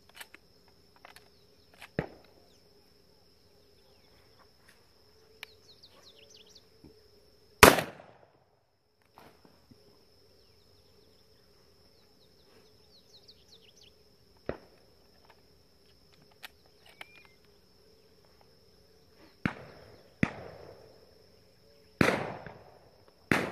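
Shotgun shots at a dove shoot: one very loud shot about a third of the way in and four more in quick succession near the end, with fainter distant shots between. A steady insect drone runs underneath.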